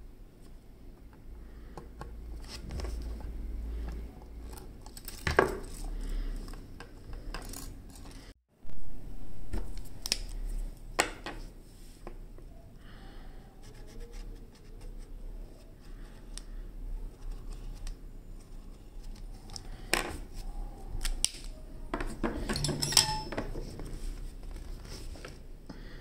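Small clicks, taps and scratches of hands working a keyboard circuit board and its Pro-Micro socket pin legs on a wooden table. A few sharper clicks stand out, with a denser cluster near the end.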